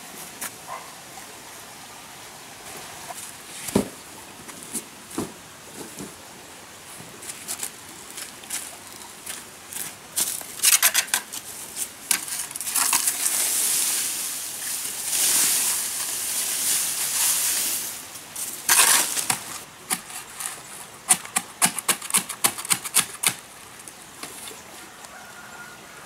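Handling noises: scattered light clicks and knocks, a dense run of them about ten seconds in, then several seconds of loud rustling, and another quick flurry of clicks near the end, over a steady faint hiss.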